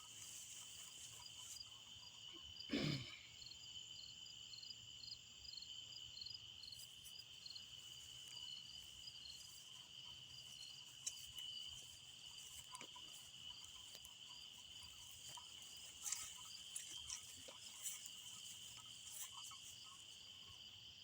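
Night insects in humid summer weather: a steady high-pitched drone, with a rhythmic chirping over it for the first several seconds. A short thump about three seconds in, and a few faint clicks.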